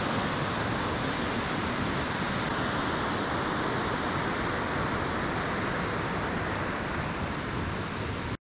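Steady rush of running or falling water, an even hiss with no rhythm that cuts off abruptly near the end.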